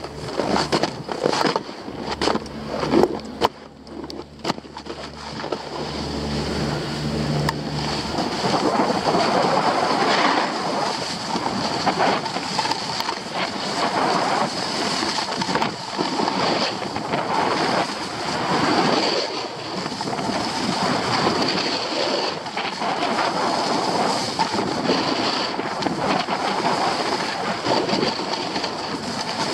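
Sharp clicks and knocks for the first several seconds, with a low steady hum. From about eight seconds in, a snowboard scraping and carving over groomed snow under a continuous rush of wind on the microphone, rising and falling every couple of seconds with the turns.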